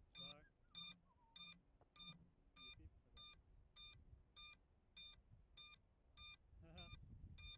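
Electronic beeper giving short, high-pitched beeps at an even pace of about one every 0.6 s.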